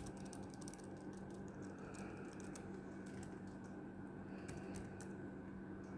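Keys of a 2014 MacBook Pro's keyboard clicking as they are pressed to test them after a keyboard repair: a fast run of key presses in the first second, then single presses spaced apart.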